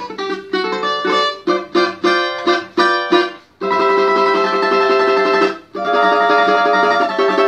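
A cavaquinho with a cedar and marupá top and araucária back and sides, strummed. First come separate chord strokes about twice a second, then from about three and a half seconds in, fast continuous strumming of held chords with a brief break near the end, the strings holding their tuning.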